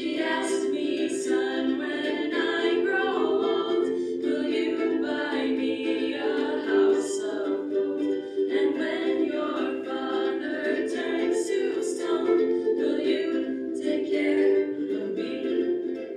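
A group of ukuleles strummed together, with voices singing a song over them.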